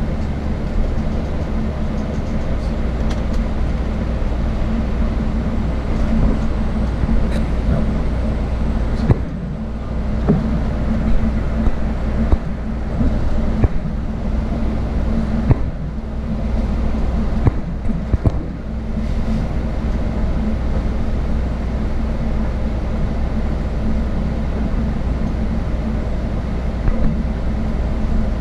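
Steady drone of a shuttle bus travelling at speed, heard from inside the cabin: engine and tyre rumble with a low hum and a few small clicks.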